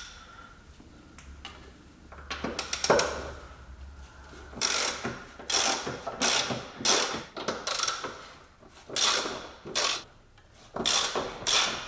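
Socket ratchet clicking in short runs, stroke after stroke, as a 13 mm nut is undone; a single knock a few seconds in.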